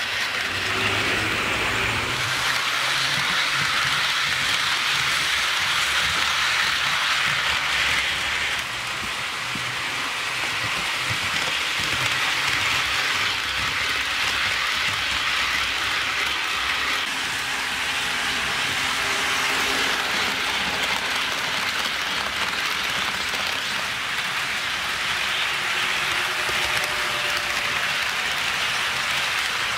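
HO scale model freight trains rolling along sectional track, a steady hiss and clatter of metal wheels on rail. The sound shifts abruptly a few times.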